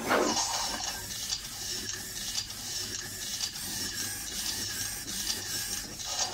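Robosen Bumblebee robot's servo motors running continuously as it performs a mountain-climber exercise routine in a plank position. The grinding whir is somewhat stronger in the first second.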